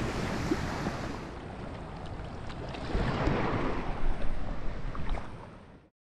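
Wind buffeting the microphone over sea washing at the shoreline: a steady rumbling hiss that swells about halfway through and fades out near the end.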